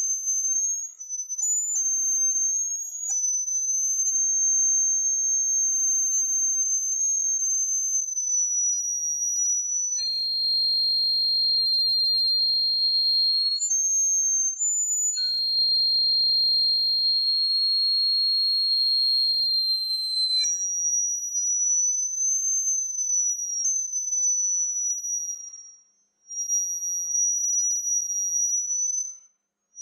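A high, thin electronic tone, held steadily with a slow waver in pitch. About a third of the way in it drops to a lower steady note, then returns to the higher pitch after about ten seconds. It cuts out briefly twice near the end.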